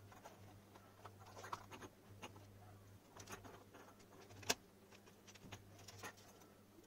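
Near silence: a faint low hum with scattered small clicks and taps from wires, a circuit board and a soldering iron being handled during desoldering. One sharper click comes about four and a half seconds in.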